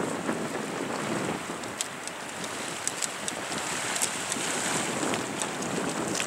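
Small sea waves washing against the edge of a rocky shore shelf, a steady wash of surf with some wind on the microphone and scattered faint clicks.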